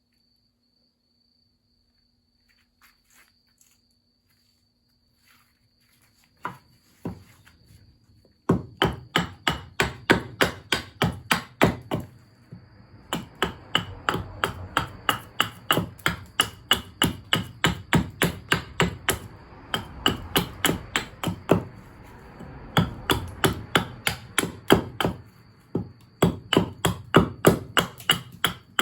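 Rapid, regular strokes of a blade biting into hard fatwood, about three a second, starting about eight seconds in after a few single knocks and pausing briefly once. A steady high insect drone sits underneath.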